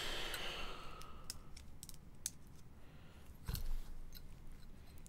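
Light, scattered clicks and ticks of small objects being handled on a desk, with one soft knock about three and a half seconds in.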